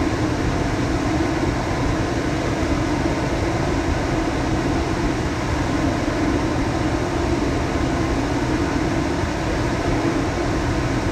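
Indoor blower of a 2012 Bryant Legacy Line central air conditioner running steadily: a constant rush of moving air with a low hum and a droning tone underneath.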